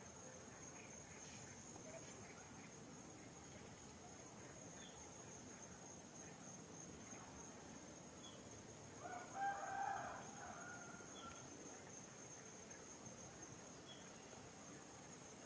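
Steady high-pitched drone of insects, with a rooster crowing once about nine seconds in.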